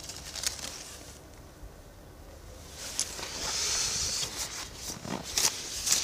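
Handling noise as someone rummages through a pocket for a coin: rustling of clothing with scattered small clicks, a soft hiss about halfway through, and a few sharper clicks near the end.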